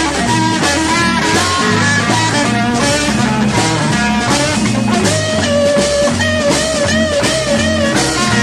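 Psychedelic rock band playing an instrumental passage: electric guitar lead over bass and drum kit, with a long held guitar note around the middle.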